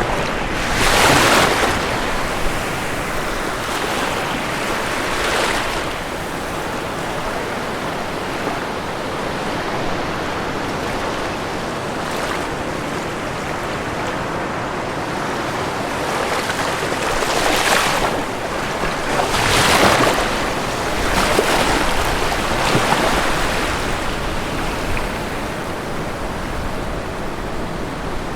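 Ocean waves breaking and washing on a shore under a steady hiss of surf. Several louder surges come about a second in, around five seconds in, and in a cluster from about 17 to 23 seconds in.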